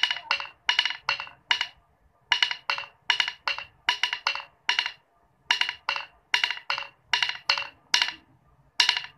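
A pair of drumsticks tapping on a tiled stone floor, playing a march beat slowly. The strokes come in quick clusters of two or three, and the phrase repeats with short pauses about 2, 5 and 8.5 seconds in.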